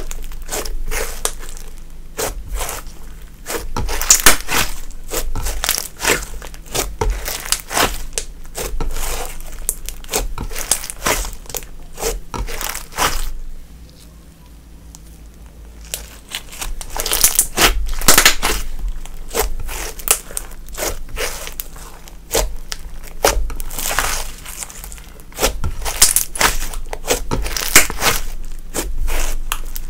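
Slime being squished, folded and stretched by hand, giving a dense run of sticky crackles, clicks and pops. It goes quieter for about two seconds around the middle, then the crackling picks up again.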